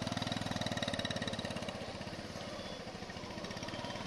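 Small motorcycle engine running close by with a rapid, even putter as the bike moves slowly past. It grows slightly quieter over the few seconds.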